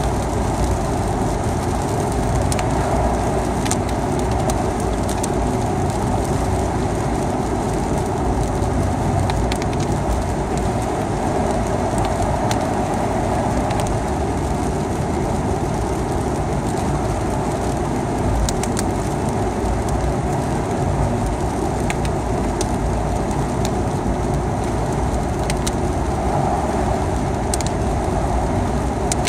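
Steady road noise of a vehicle driving on a wet highway in the rain, with scattered sharp ticks of raindrops.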